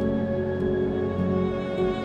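Slow cinematic background music with long held string notes.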